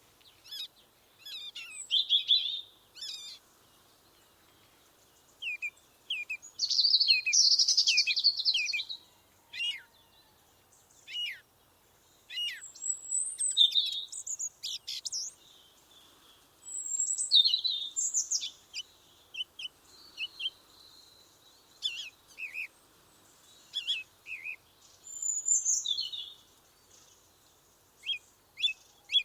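Several songbirds singing and calling in a forest: repeated short chirps and quick song phrases, some high and trilled, with brief pauses between them.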